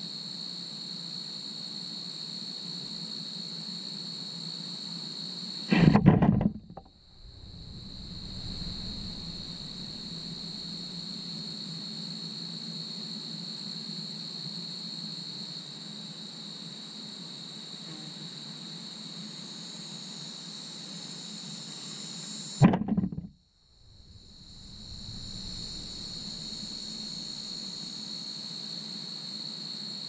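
Steady high-pitched trilling of crickets or other insects, over a low steady hum. Two brief loud bumps close to the microphone, about six seconds in and again about 23 seconds in, each followed by a moment in which the background drops away before returning.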